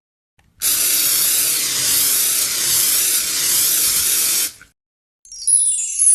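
A loud hissing, spray-like sound effect that lasts about four seconds, with a slow wavering in its tone. Near the end a high, sparkling run of tones starts and falls in pitch.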